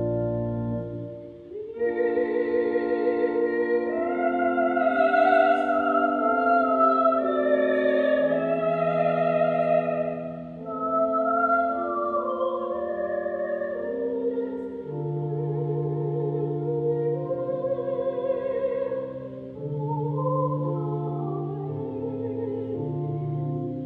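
A solo soprano singing a slow line with wide vibrato over sustained pipe organ chords. An organ chord dies away about a second in, and voice and organ begin again about two seconds in.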